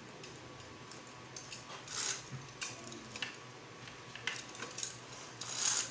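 Window-blind hardware being handled: plastic brackets and a bead chain clicking and clinking, with short rattles about two seconds in and again near the end.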